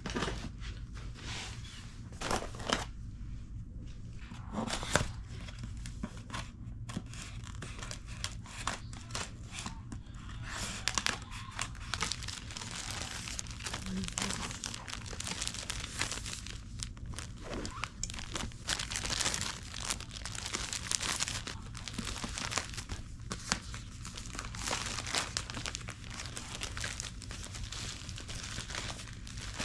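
Paper and plastic packaging crinkling and rustling as it is handled and torn open, with many short irregular crackles, over a steady low hum.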